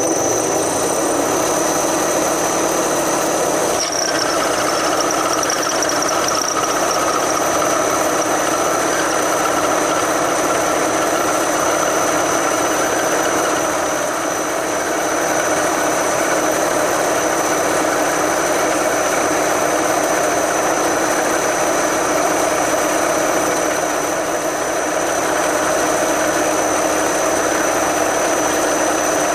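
Vertical milling machine running, with a spiral end mill cutting a clamped metal part in a steady grind, a constant high whine and the hiss of a coolant spray on the cutter.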